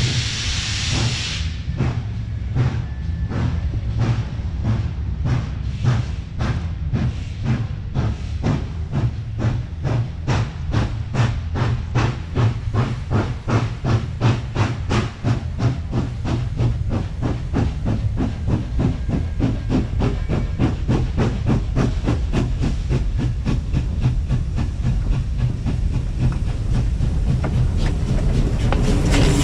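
NSWGR 36 class 4-6-0 steam locomotive 3642 starting away from a station. A hiss of steam opens, then the exhaust chuffs begin slowly and quicken steadily as it gathers speed. The beats grow louder toward the end as the engine comes alongside.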